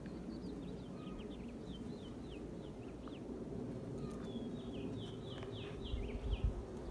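A small bird chirping repeatedly: quick runs of short falling notes over a low steady rumble, with a few soft bumps near the end.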